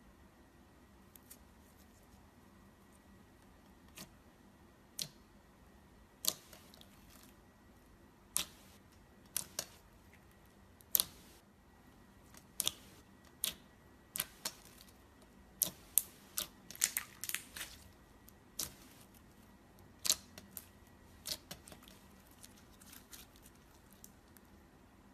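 Clear slime being squeezed and played with by hand, giving irregular sharp clicks and small pops, with a quick cluster of them about two-thirds of the way through.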